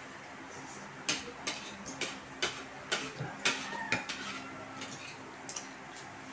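Cutlery clinking against dishes: a quick series of about eight sharp clinks, a couple of them ringing briefly, then a few fainter ones near the end.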